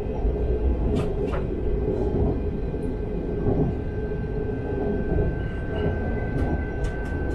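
Talent 3 electric multiple unit running along the line, heard from the driver's cab: a steady rumble of wheels on rail with a low hum. There are two sharp ticks about a second in, and a thin steady whine joins about four seconds in.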